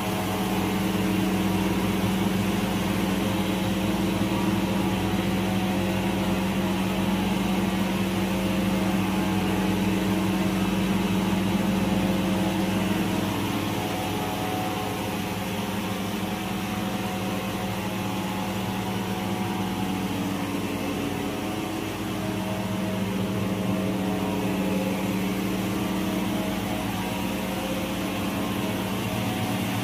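Circular knitting machine running steadily: a continuous mechanical hum with several steady tones, slightly quieter for a while in the middle.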